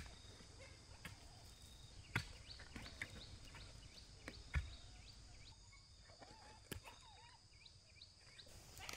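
Quiet rural ambience: a steady faint high hiss, with scattered short high chirps from small birds. Two sharp knocks land about two and four and a half seconds in.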